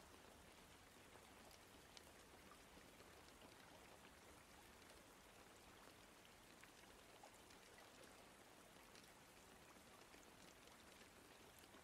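Faint steady rain, with scattered drop ticks.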